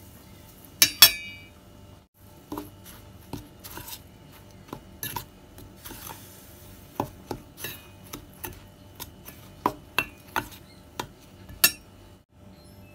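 A metal spoon stirring a dry flour and bread-crumb mix in a stainless steel bowl: irregular clinks and scrapes of spoon against the bowl. The loudest is a pair of ringing clinks about a second in.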